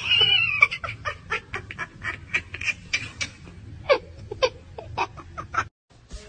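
A cat yowling: one loud, wavering high call, then a run of short meowing calls, about three or four a second, that cuts off suddenly near the end.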